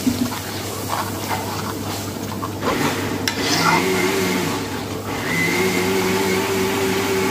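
A long metal ladle stirs and scrapes thick onion gravy in a large metal kadai over a gas flame, with short scrapes against the pan over a steady kitchen hum. About halfway through, a steady humming machine whine with several pitches joins in.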